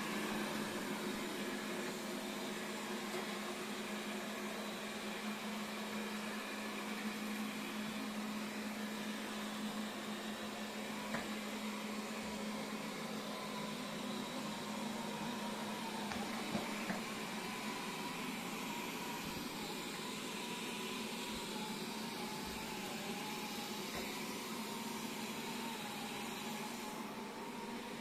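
Robot vacuum cleaner running: the steady whir of its suction fan and brushes.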